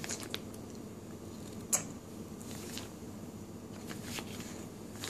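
Spoon-feeding sounds of a baby eating puree: a few soft clicks and smacks over low room noise, the sharpest a little under two seconds in.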